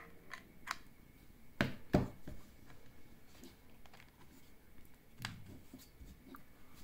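Small objects being handled: a few light clicks, then two louder knocks close together about two seconds in, and another knock near the end.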